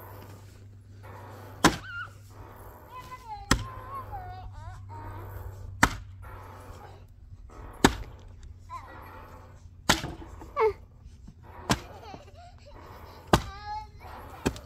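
Axe striking a willow firewood round seven times, about two seconds apart: a Fiskars axe hammered in to free a Husky axe stuck in the wood.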